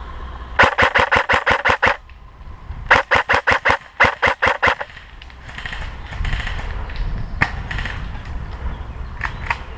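Airsoft electric rifle (AEG), a Cyma AK47 replica, firing three short full-auto bursts close by, each a rapid even rattle of the gearbox cycling. After the bursts come quieter rustling and a few single clicks.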